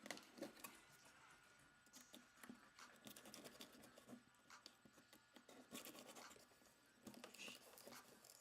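Faint, irregular scraping, rustling and small knocks of packaging being handled and pulled apart while unboxing a car amplifier.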